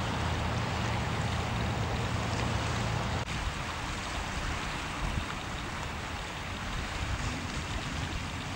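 Outdoor wind-and-water noise of a wide river: wind on the microphone and the wash of the river, with a low steady hum through the first three seconds that drops away at an abrupt change about three seconds in.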